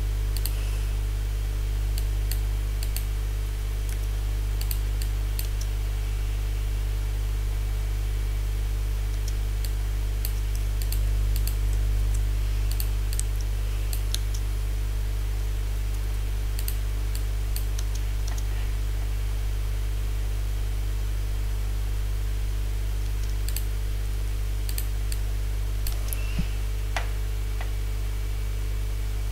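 Scattered clicks of a computer mouse and keyboard, in small clusters with pauses between them, over a steady low hum.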